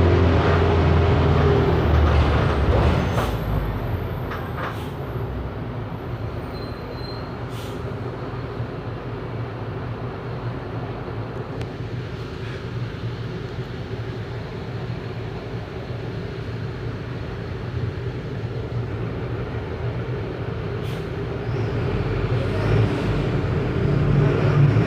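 The diesel engine of a Mercedes-Benz OF 1519 bus, a four-cylinder OM 924 LA, pulls loudly at first, then eases to a quieter, steady run for most of the stretch. A few sharp clicks come through, and the engine works up and grows louder again near the end.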